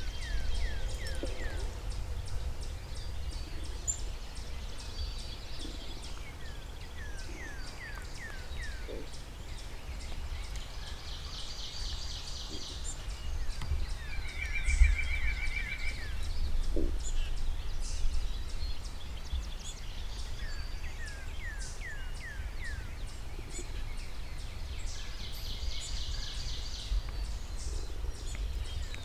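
Several songbirds singing: repeated runs of short down-slurred whistled notes, and fast high trills that come and go, over a steady low rumble of wind or outdoor noise.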